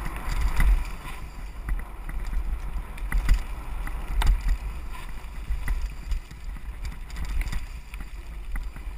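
Mountain bike riding downhill on a rough dirt singletrack, heard from a camera mounted on the rider: wind buffeting the microphone as a steady low rumble, with scattered clicks, rattles and knocks from the bike over bumps.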